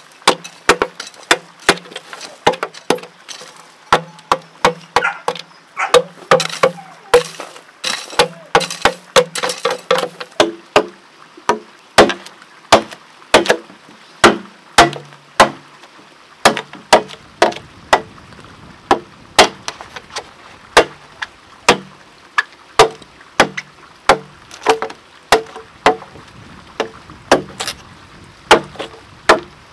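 Machete chopping into a green bamboo pole: a steady run of sharp knocks, about two a second, each with a short ring.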